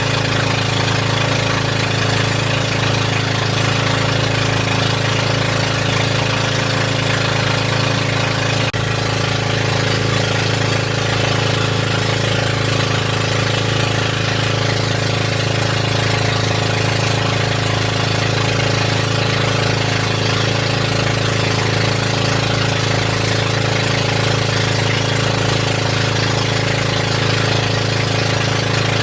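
Boat engine running steadily at constant speed, a loud, even chugging drone.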